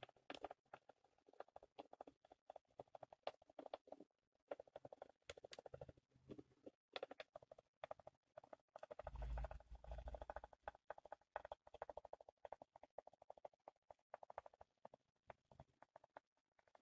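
Kleinbahn E424 HO-scale model electric locomotive running along the track, faint: a whirr from its two original disc-collector motors with dense small clicking of wheels on rail. A low rumble comes in about nine seconds in.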